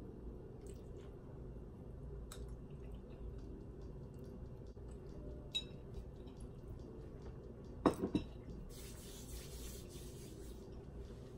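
Someone eating macaroni salad quietly: small clicks of a metal fork against a bowl, with a louder cluster of clicks about eight seconds in. Near the end comes a soft rustling hiss of palms rubbing together.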